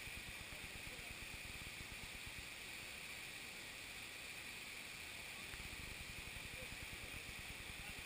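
Steady rush of a stream, with water lapping and gurgling right at a camera sitting at the water's surface.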